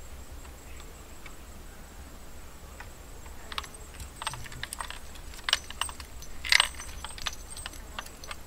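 Scattered sharp clicks and light knocks of a qeej's bamboo pipes being handled, starting about three and a half seconds in, the loudest a little after six seconds, over a low steady hum.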